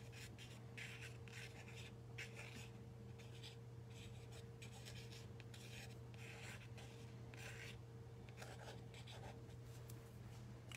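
Faint scratching of a black paint pen's tip on sketchbook paper as it draws quick, irregular squiggly lines, over a steady low hum.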